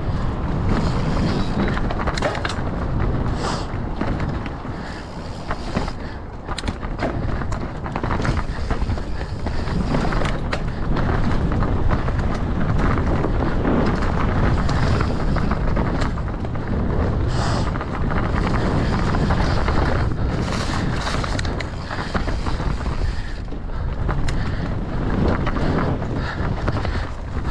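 A mountain bike riding fast down a rough trail: tyres rolling over dirt and rock, with frequent knocks and rattles from the bike, under steady wind buffeting on the microphone.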